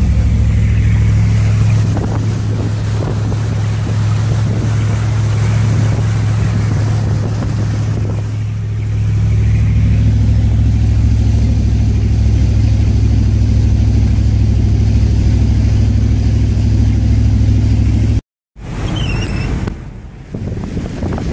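A vehicle engine runs with a steady low hum while driving through floodwater, with a wash of water and wind noise. Near the end the sound cuts out for a moment, and after that mostly wind buffeting the microphone and water are heard.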